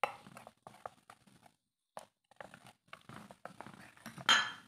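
Metal spoon stirring a thin creamy mixture in a bowl, making irregular soft clicks and scrapes against the bowl, with one louder scrape a little before the end.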